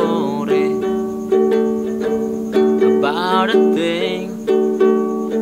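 Background music: a strummed ukulele with a steady beat, and a voice sliding up on a note near the start and again about three seconds in.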